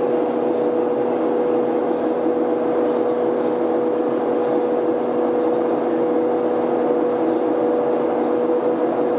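Jet airliner's engines heard from inside the passenger cabin during the climb after takeoff: a steady, even drone with a clear held tone running through it.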